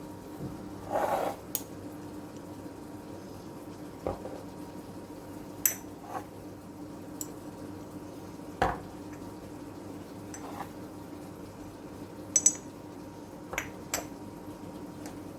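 Dishes and utensils being handled, with about a dozen separate clinks and knocks, including a quick double clink near the end. A steady low hum runs underneath.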